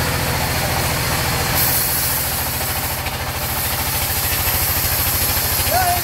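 A sawmill's engine running steadily with a fast, even low pulse, driving the band saw. About a second and a half in, a high hiss joins it as the blade runs through the log.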